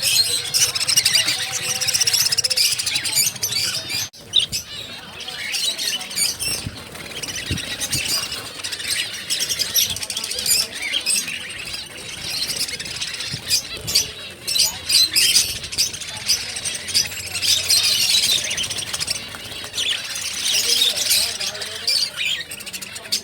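Many small cage birds chirping and twittering at once in a dense, continuous chatter of high calls, with a brief lull about four seconds in.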